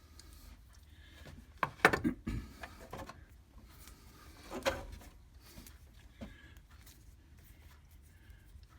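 Handling noise of tools and wires: a short clatter of knocks about two seconds in, another brief rattle about four and a half seconds in, and a faint click near six seconds.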